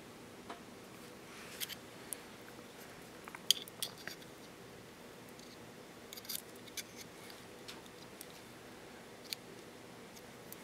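Scattered light clicks and taps of small metal parts being handled: a brushless gimbal motor being fitted against an aluminium gimbal arm, with the sharpest click about three and a half seconds in. A faint steady hum sits underneath.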